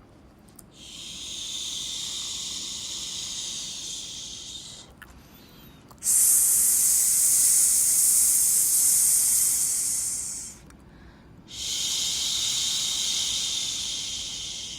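Three long 'shhh' shushing hisses, each lasting a few seconds, with short pauses between them; the middle one is the loudest. This is a lulling white-noise shush of the kind used to settle a baby to sleep.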